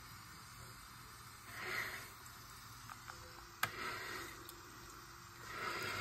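Old Mansfield toilet being flushed. A sharp click comes about midway as the flush mechanism is worked, and near the end water starts rushing out of the tank through the lifted flush valve.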